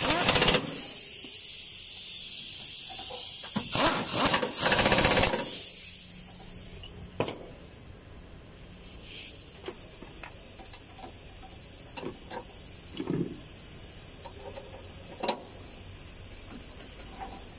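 Pneumatic ratchet on the engine mount bolts, running in short hissing, rattling bursts twice in the first few seconds. After that come scattered light metallic clicks and taps of tools on the bolts.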